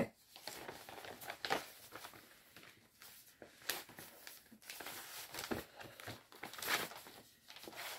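Faint, intermittent rustling and crinkling of an embroidery kit's plastic packaging as it is handled, with a few soft ticks.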